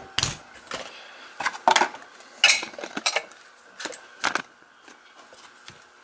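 Brass padlock, keys and metal tools clinking and knocking as they are handled on a workbench: a string of separate sharp metal clicks over the first four seconds or so.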